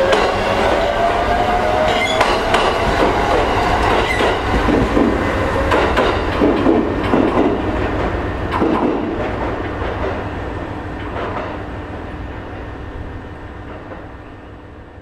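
Electric train pulling away, its GTO-VVVF inverter whine climbing in pitch over the first few seconds while the wheels click over rail joints. The sound then fades steadily as the train draws off into the distance.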